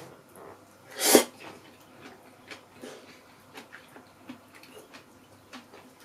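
One short, loud breathy burst from a person about a second in, like a sneeze or a sharp snort. After it come faint scattered clicks and taps of chopsticks against a bowl during eating.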